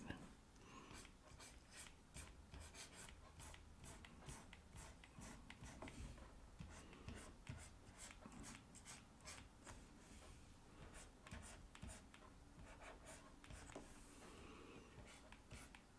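Faint scratching and tapping of a stylus making many short, irregular drawing strokes on a pen tablet.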